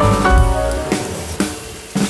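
Background music: melodic pitched notes over a drum kit, thinning to a few drum hits in the second half.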